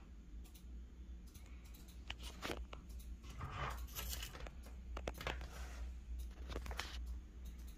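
Faint handling noise: scattered rustles and clicks, busiest in the middle, over a steady low hum.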